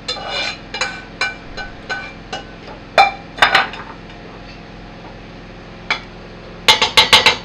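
Metal spoon knocking and scraping against a stainless steel cooking pot as thick stew is stirred. Ringing clinks come about twice a second at first, then a few scattered strikes, and a quick run of taps near the end.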